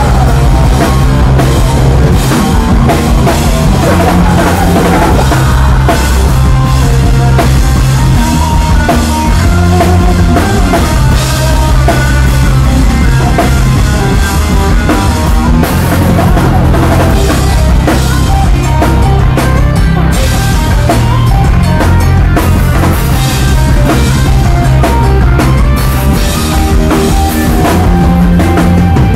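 Live rock band playing loud, with drum kit, bass and electric guitar, heard from on stage.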